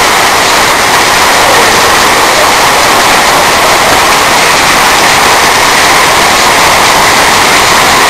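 Torrential rain pouring down on a flooding road, a loud, steady hiss with no let-up.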